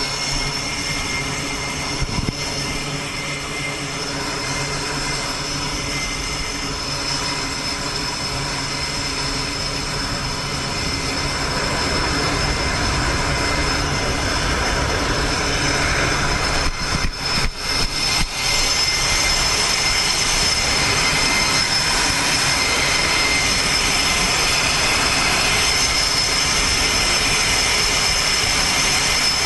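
Jet aircraft engines running on an aircraft carrier flight deck: a continuous rushing noise with steady high-pitched whines. It grows louder about twelve seconds in, and again after a few short crackles around seventeen seconds.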